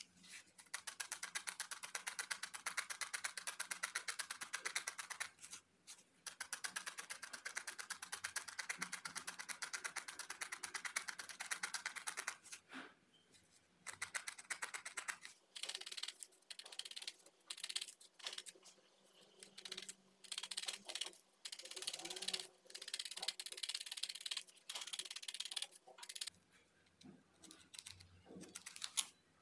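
Needle felting: a barbed felting needle stabbing rapidly into wool roving on a foam pad, a fast run of crisp pokes. It stops briefly near 5 s, then again for a couple of seconds after 12 s, and goes on in shorter bursts after that.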